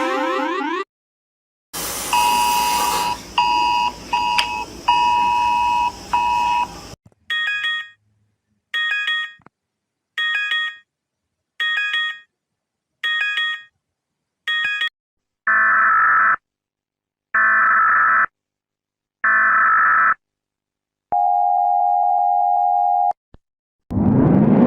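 Emergency-alert-style electronic tones in sequence. First a noisy stretch with repeated beeps, then six short beeps about 1.4 seconds apart, then three one-second bursts, then a steady tone held for about two seconds. A siren begins rising near the end.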